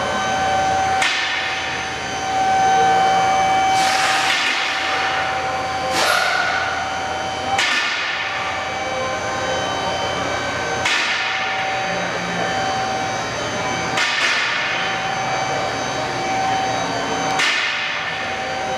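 Hammer striking metal, about seven blows a few seconds apart, each leaving a lingering metallic ring.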